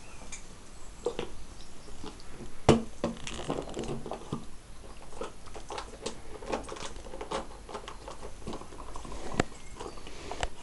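A Siberian Husky and a Springador playing on a hard tiled floor: scattered clicks and pattering of claws, with scuffling and mouthing sounds, and one sharper knock a little under three seconds in.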